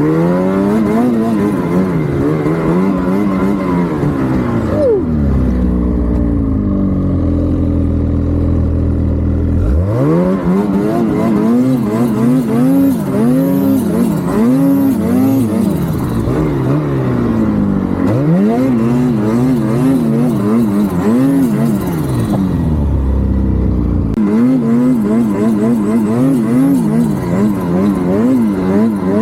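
Turbocharged vehicle engine being driven hard, its pitch rising and falling over and over as the throttle is opened and closed. It holds a steady note for a few seconds twice, and a faint high turbo whine rises and falls along with the revs.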